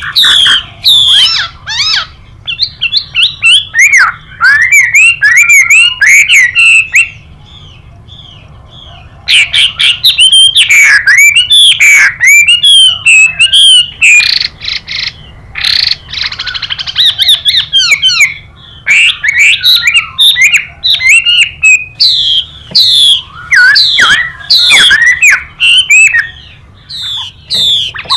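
Chinese hwamei (Garrulax canorus) singing loud, rapid phrases of sliding whistled notes, mixed with harsh, buzzy calls. A short lull falls about seven seconds in.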